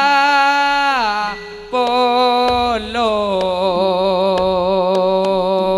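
Live traditional kuda kencak accompaniment: a strong melody line holding long notes that slide down in pitch and waver, over a steady low drone, with light percussion hits.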